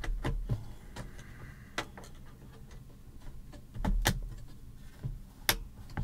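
A Crucial DDR5 memory module is pushed into a desktop motherboard's DIMM slot, with light knocks and handling thumps. Then come two sharp clicks about a second and a half apart, the second the loudest: the slot's retaining latches snapping shut as the module seats.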